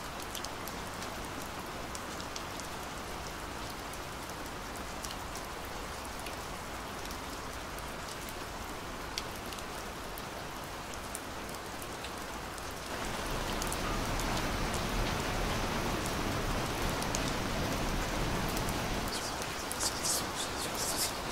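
Steady rain falling, with scattered drip ticks. About thirteen seconds in the rain grows louder and fuller, and a few sharp clicks come in near the end.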